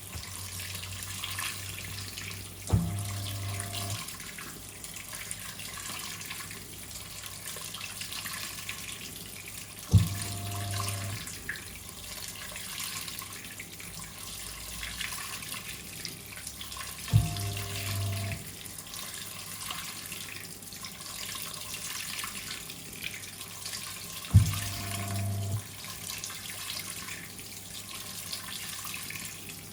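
Hoover 800RL top-loading washing machine filling with hot water, water running steadily into the tub. Four times, about every seven seconds, a click and a brief motor hum of about a second as the drum pulses during the fill.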